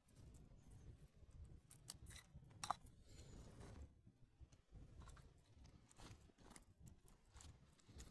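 Near silence, with faint scattered clicks and crackles and one sharper click about two and a half seconds in.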